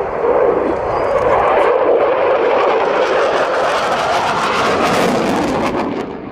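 Saab JAS 39 Gripen's single Volvo RM12 turbofan jet engine roaring past in a display pass, growing harsher with crackle in the middle and dropping away sharply near the end.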